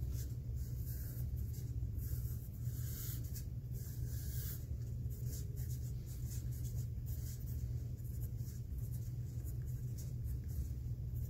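Graphite pencil scratching on paper in short irregular strokes as lines, tick marks and letters are drawn, over a steady low hum.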